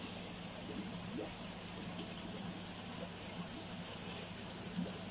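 Koi pond water running steadily, with a low steady hum underneath.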